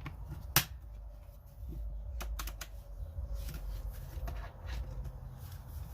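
Plastic vacuum parts being handled and clicked: one sharp click about half a second in, a few more clicks a couple of seconds later, over low rumbling handling noise.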